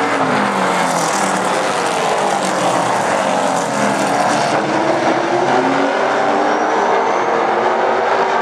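A field of super stock race cars running at racing speed, several engines overlapping, their pitches rising and falling as the cars pass and work through the corners.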